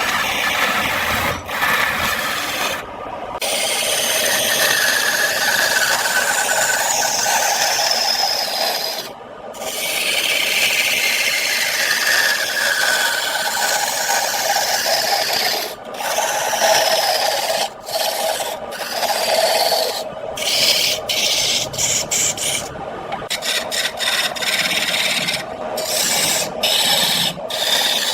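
Turning tool cutting wood spinning on a lathe: a continuous rasping scrape, broken off briefly several times as the tool leaves the wood, with a faint whine that slides in pitch as the cut changes.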